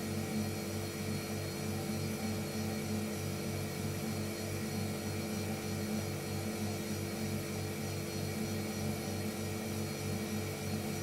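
Refrigerator running with a steady low electrical hum and a faint, even pulsing throb, the compressor motor running.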